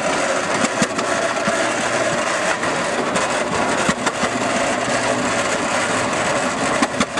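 Antique Eagle tractor's engine running steadily as the tractor drives slowly on steel wheels, with a few short sharp knocks scattered through.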